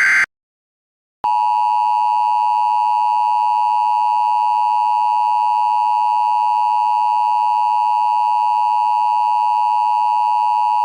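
The end of a buzzing EAS header data burst, a short gap, then the Emergency Alert System attention signal: a loud, steady electronic tone starting about a second in and held for about ten seconds before cutting off, marking that an emergency message follows.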